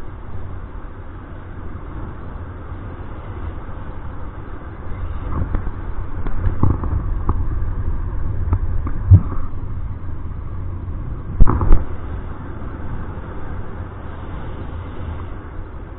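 Wind buffeting the microphone of a paraglider pilot's camera in flight, a steady low rumble that swells through the middle. There are a few sharp thumps, one a little after nine seconds and two close together around eleven and a half seconds.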